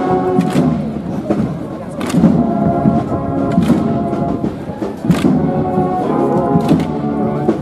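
Processional band playing a slow march: held brass-like notes changing every second or two, over sharp drum strikes.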